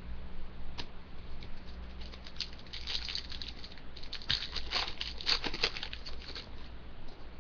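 Cardboard trading cards being handled: light flicks and rustles of cards sliding against each other, in two short runs about two and four seconds in.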